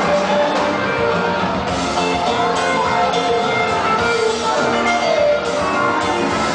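Loud upbeat rock music with guitar playing over the hall's sound system.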